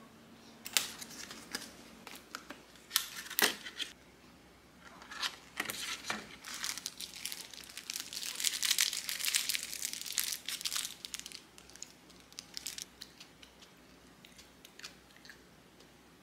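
Sandwich wrapping paper crinkling and rustling as a wrapped sandwich is handled and lifted from a kraft paper box. A few sharp crackles come first, then a denser stretch of crinkling in the middle that tails off into a few light ticks.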